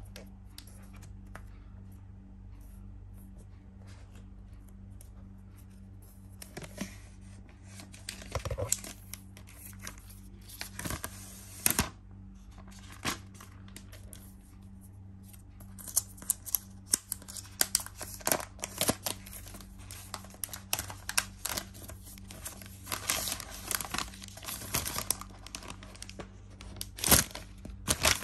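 Crackling, crinkling rustle of a new iPad Pro's thin protective wrap being handled and pulled off. It is sparse at first, with a few sharp crackles in the middle, and grows dense over the second half.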